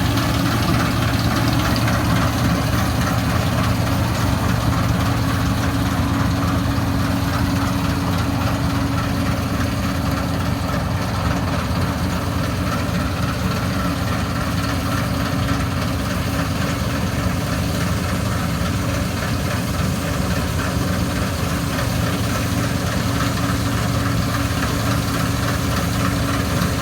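An engine running at a steady speed, a constant low drone that holds unchanged throughout.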